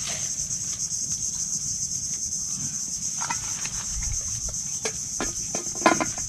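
A steady, high-pitched chorus of insects trilling, with a few light knocks and a sharper metal clink near the end as a metal lid is set on a cooking pot.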